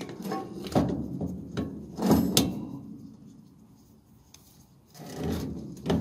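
Ratchet strap webbing sliding and rubbing against itself as it is pulled and wrapped around the strap at a motorcycle fork: a few short scraping pulls, the loudest about two seconds in, with a quieter spell near the end.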